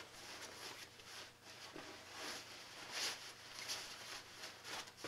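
Faint rustling and swishing of fabric as a stuffed puffy jacket is squeezed and turned over in the hands, in a series of soft brushes.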